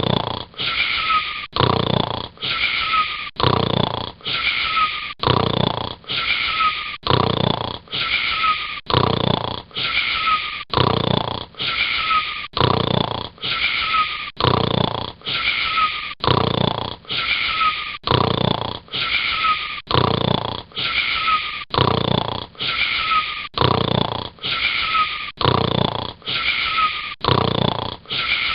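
Snoring: one short snore with a faint falling whistle, repeated about once a second in an identical loop.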